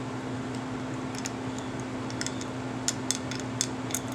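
A series of light, sharp clicks and taps of a screwdriver and small metal parts as the rear truck of an American Flyer 312 toy train locomotive is unscrewed, coming closer together in the last second and a half, over a steady background hum.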